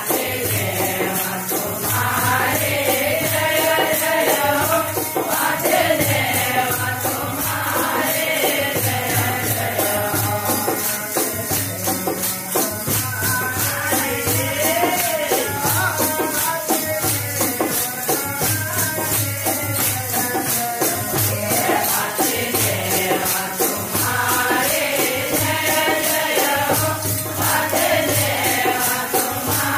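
Men's voices singing a Hindi devotional bhajan in a kirtan, with a fast, steady jingle of small hand cymbals and a low pulsing drum beat.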